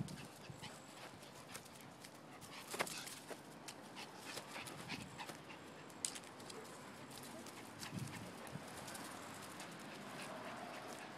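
Quick, irregular footfalls and rustling on grass and dry leaves as a person and a dog run about, with scattered sharp clicks.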